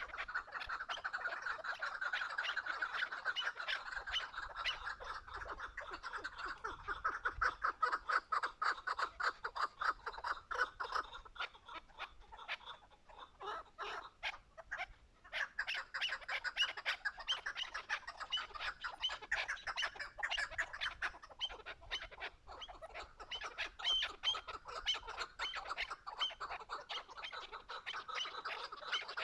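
Chukar partridge calling: rapid, continuous clucking chatter that breaks off for a moment about halfway through.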